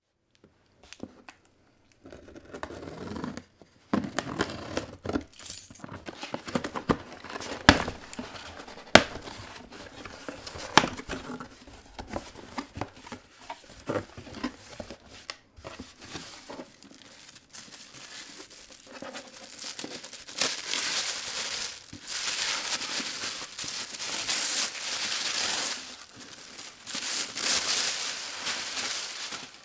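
A cardboard shipping box being opened by hand, with tearing and sharp knocks and scrapes as the flaps are worked. From about twenty seconds in comes loud crinkling of a thin plastic bag as the boxed headset is pulled out of it.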